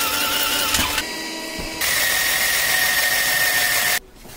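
Electric drill running, its bit boring through the sheet-steel case of a computer ATX power supply. The whine jumps in pitch and level twice and stops about four seconds in.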